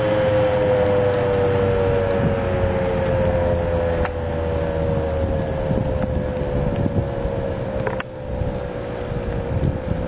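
American Signal T-128 two-tone rotating outdoor warning siren winding down at the end of its alert test, its two close tones slowly and steadily falling in pitch.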